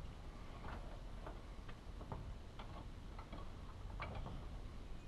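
Faint, irregular light clicks and taps of hands handling small parts and tools on a table while fitting rope packing into the machine's packing bore.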